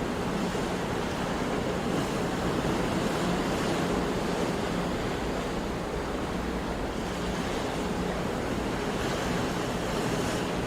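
Sea waves washing onto a shore in a steady rush, swelling and easing gently, with wind noise on the microphone.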